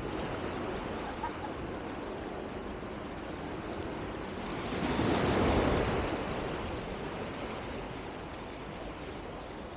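Calm sea washing against the shore under steady wind noise; the sound swells louder for a couple of seconds about halfway through, then settles back.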